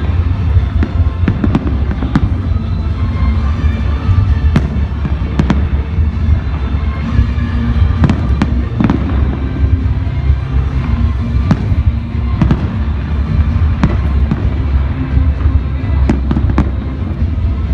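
Fireworks display: many sharp shell bursts and crackles in quick succession over a continuous low rumble, with music playing underneath.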